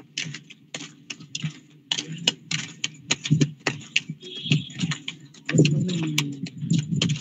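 Irregular clicks and taps, several a second, over a low hum, coming through a participant's unmuted microphone in an online video call. It is stray noise from a mic left on, which the teacher finds disturbing.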